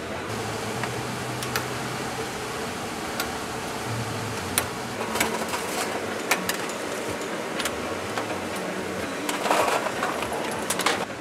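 Oil sizzling in a wok as sweet potato balls deep-fry, with scattered sharp metal clicks of a slotted ladle against the wok and tray. Near the end there is a dense clatter as fried balls tumble from a metal tray into a wire basket.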